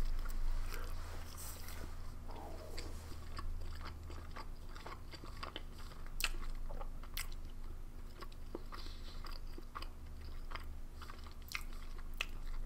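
A person chewing a mouthful of veggie burger: a textured vegetable protein patty in barbecue sauce on a soft bun. Soft, irregular wet mouth clicks go on throughout, over a steady low hum.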